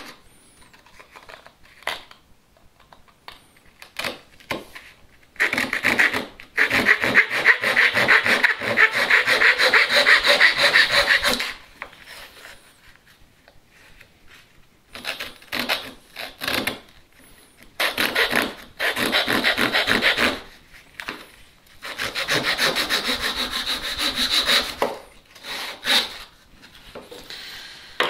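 Japanese-style pull saw cutting across a small strip of wood in quick, short rasping strokes, in three long runs with pauses and a few knocks between them.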